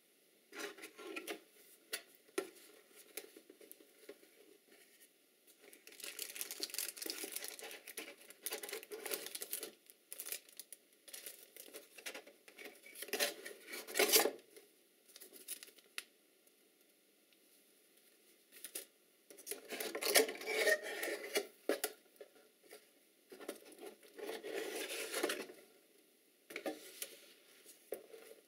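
A cardboard camera box and its paper leaflets handled by hand: rustling and scraping of card and paper in bursts, with sharp taps and clicks of the packaging and quiet gaps between.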